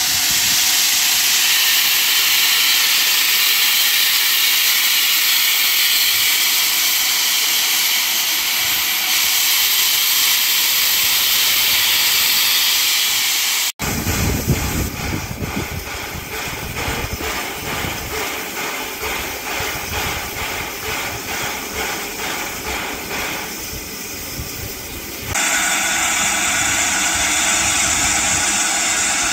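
Steam hissing steadily and loudly from a standing LNER A4 Pacific steam locomotive. About 14 seconds in, the sound cuts to a lower rumble under a softer hiss. Near the end the loud hiss returns.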